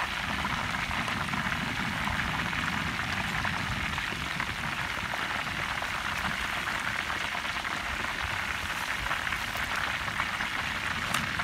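Hot oil sizzling steadily around pieces of marinated chicken deep-frying in a wide pan.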